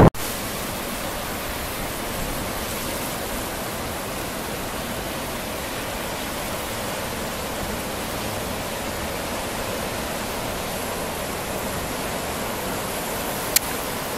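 Steady, even hiss of surf washing over shoreline rocks, with a single sharp click near the end.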